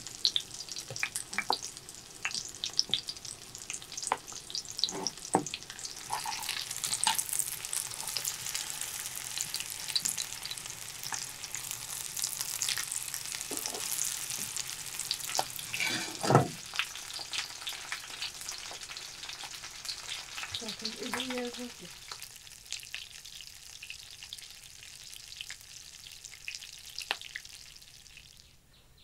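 Battered fish frying in hot oil in a pan: a steady sizzle full of sharp crackles and spits. The sizzle thins out after about twenty seconds and fades away near the end.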